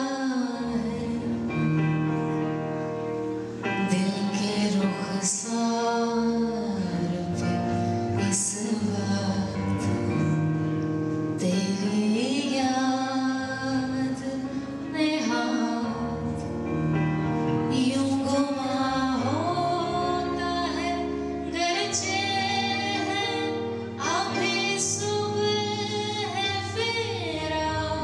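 A woman singing a slow, melodic song with instrumental accompaniment, holding long notes that slide between pitches.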